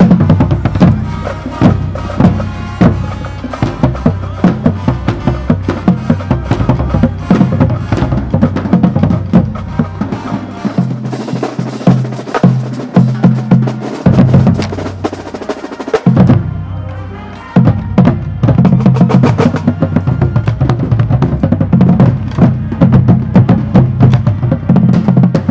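Marching band drumline of snare, tenor and bass drums playing a fast, loud cadence. About eleven seconds in the deepest drums drop out for a few seconds; a little later the playing thins out briefly before the full drumline comes back in.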